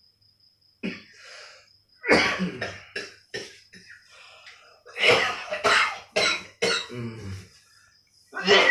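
A man coughing in fits: a single cough, then two bouts of four or five coughs in quick succession, and one more cough near the end. This is the unceasing cough the man is suffering from.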